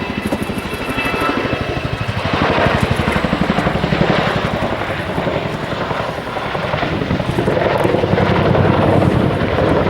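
Boeing CH-47 Chinook tandem-rotor helicopter flying past, its twin rotors giving a rapid, continuous blade thudding over the turbine noise. It grows louder about two seconds in and again in the second half.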